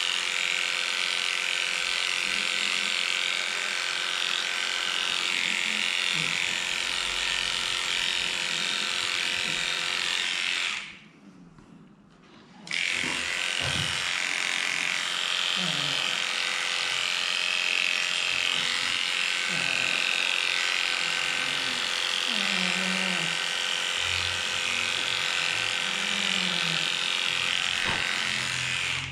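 Electric dog-grooming clippers running steadily, a high buzz over a steady hum, switched off for about two seconds near the middle and then running again.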